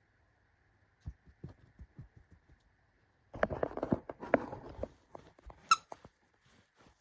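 Handling of a plastic blind-bag packet: a few light taps, then about a second and a half of crinkling plastic as the bag is worked open, followed by a short high squeak near the end.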